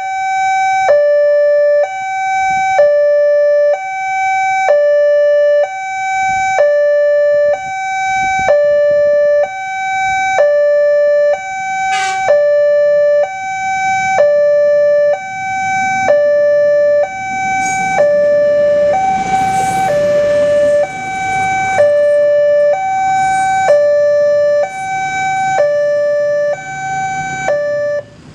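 Indonesian railway level-crossing alarm sounding its two-tone electronic warning: a higher and a lower note alternate, each held about a second. From about halfway through, the rumble of a passing train rises underneath, and the alarm cuts off right at the end.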